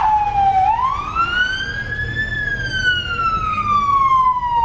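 Electronic siren sounding a slow wail: its pitch climbs for about two seconds, then falls slowly and steadily, over low street noise.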